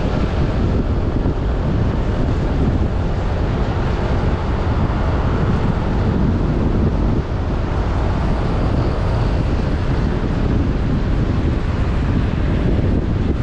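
Wind buffeting the microphone of a riding motorcycle, with the motorcycle's engine and road noise under it, steady and even.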